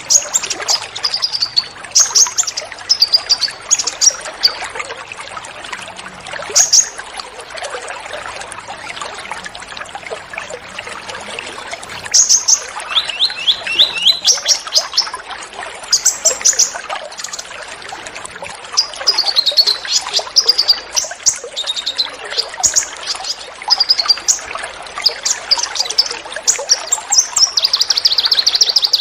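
Small songbirds giving rapid bursts of sharp high chirps and short trills, in clusters with pauses of a few seconds between, over a steady trickle of running water.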